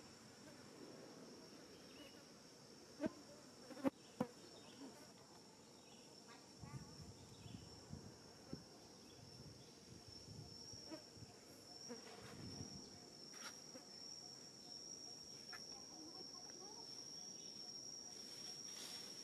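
Faint, steady high-pitched drone of insects, growing stronger in the second half. Three sharp taps sound about three to four seconds in.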